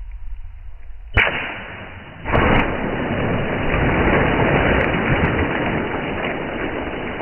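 A water balloon bursting with one sharp pop about a second in. A loud, steady rushing noise follows from about two seconds in.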